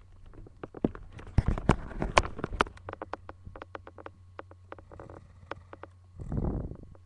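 Rapid, irregular clicks and taps, thickest in the first half, with a short noisy rush near the end, over a steady low electrical hum.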